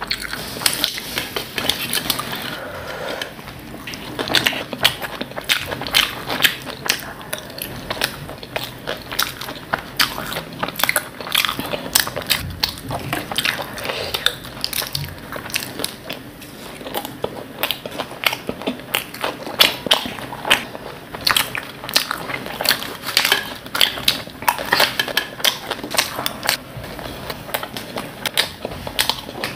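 Close-miked crunchy chewing of bhel puri, a dry mix of puffed rice and crisp sev: many quick crackling crunches packed close together throughout.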